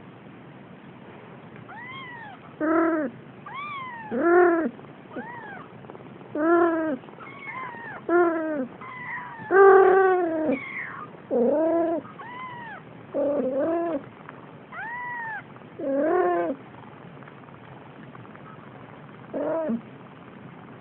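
Young kittens mewing over and over, short calls that each rise and fall in pitch, some high and thin and some lower. The calls stop a few seconds before the end, with one last mew near the end.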